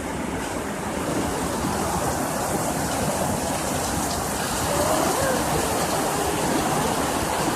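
Heavy hail pelting down, a steady, dense hiss of hailstones striking the ground and surfaces; really loud.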